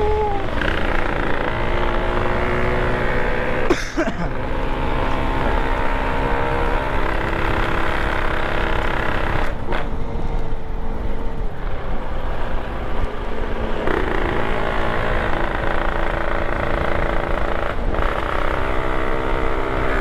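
Motorcycle engine running under way, its pitch shifting up and down, with brief breaks in the note every four to six seconds. A rough low rumble of wind and road noise runs underneath.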